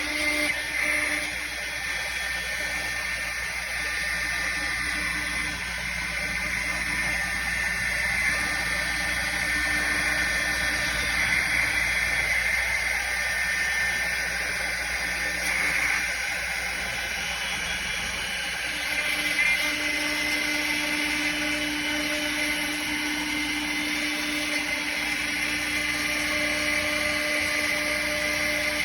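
CNC router spindle cutting wood: a continuous, steady high-pitched whine over the cutting noise, swelling slightly now and then as the bit moves through the material.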